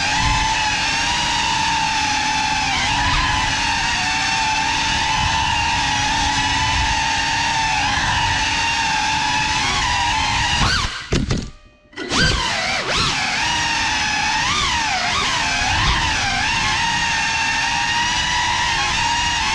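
GEPRC CineLog35 cinewhoop drone's brushless motors and ducted propellers whining at a steady pitch while flying, with small wobbles in tone. About halfway through the sound cuts out for about a second as the throttle drops, then comes back with several quick rising and falling sweeps as the throttle is punched.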